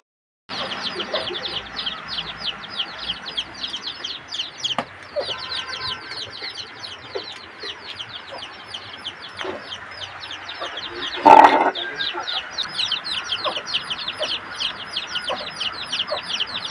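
Chicks peeping: a constant stream of rapid, high, downward-sliding chirps. One brief louder sound cuts across them about eleven seconds in.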